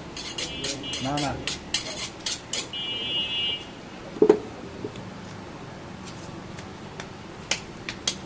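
A butcher's knife clinking and tapping rapidly for the first two and a half seconds, then one heavy chop on the wooden block about four seconds in, followed by a few scattered knocks near the end.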